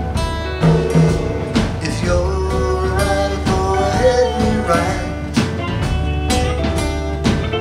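A small band playing live: strummed acoustic guitar with electric guitar and a steady beat.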